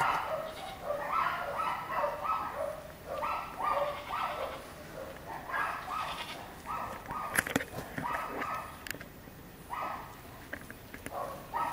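Goats bleating over and over: short calls in clusters of two to four. A few sharp clicks come about two thirds of the way through.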